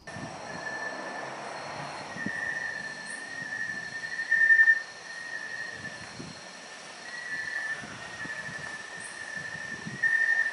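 Chorus of night insects: a steady, high-pitched drone that swells louder for a moment about four seconds in and again near the end.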